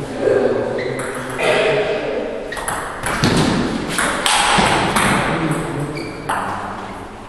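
Table tennis rally: the celluloid-style ball pinging off rubber bats and bouncing on the table, a run of quick sharp hits about halfway through, with echo from a large hall.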